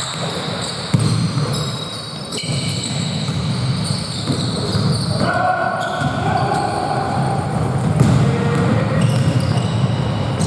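Basketball bouncing on a gym court during a game, with a few sharp knocks and players' voices.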